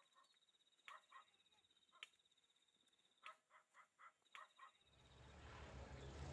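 Faint forest ambience: a steady high-pitched trill with about a dozen short chirping bird calls scattered through it. Near the end a low rumbling noise builds in.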